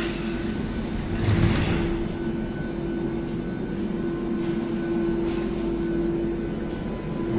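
Athens Metro line 2 train standing at an underground platform: a steady electrical hum over a low rumble, with a brief rush of noise about a second in.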